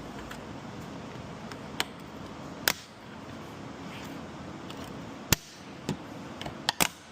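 Plastic retaining clips snapping loose one after another as a car's side rubber molding is pried off: about six sharp pops, the loudest about a third and three quarters of the way in, over a steady background hiss.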